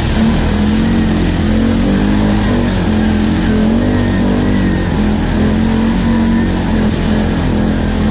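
ATV engine running continuously, its pitch rising and falling with the throttle as the quad climbs a rough dirt trail.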